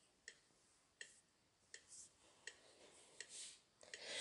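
Faint, evenly spaced clicks, about one every three-quarters of a second, setting the tempo as a count-in for the a cappella song.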